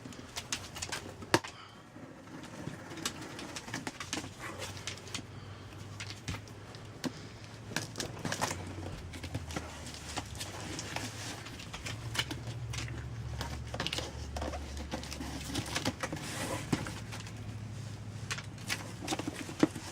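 Cardboard box being opened and unpacked by hand: scattered clicks, taps and rustles over a low steady hum.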